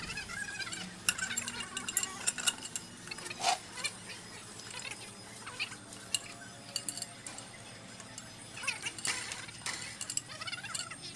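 Irregular light metallic clinks and clicks of tools and metal parts being handled during truck differential work.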